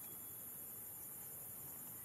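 Steady, high-pitched drone of insects in the background, with no clear animal calls or knocks.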